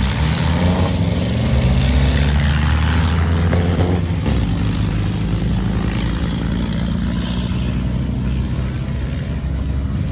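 Car engine running with a steady low rumble that slowly fades.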